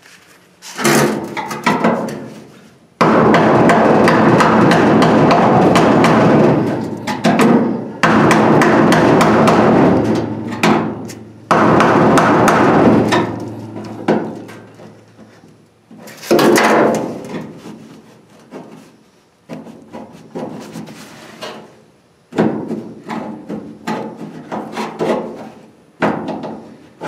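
A hammer striking the sheet-steel flange of a car's quarter panel. It comes in loud runs of rapid blows, with single blows and pauses between, as the flange is knocked back out to reshape it.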